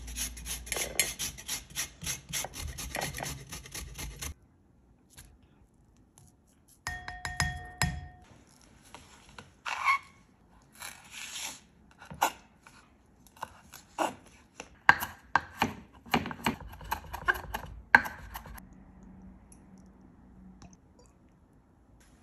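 Lemon rind rasped on a flat stainless steel grater in quick strokes for about four seconds. After a short pause comes a kitchen knife chopping fresh dill on a wooden cutting board: irregular sharp knocks, loudest near the end.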